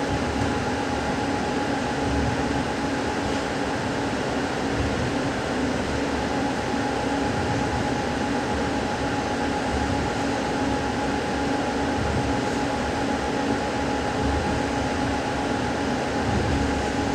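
Steady rumble of a moving passenger train heard from inside the coach, with a constant hum over it, while a freight train of hopper and gondola wagons passes close alongside on the next track.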